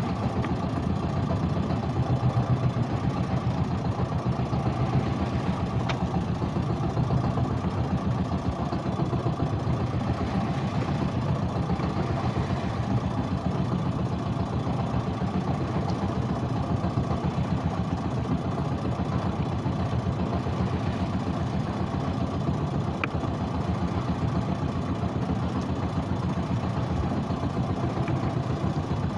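Small fishing boat's engine running steadily at an even speed, with no change in pitch.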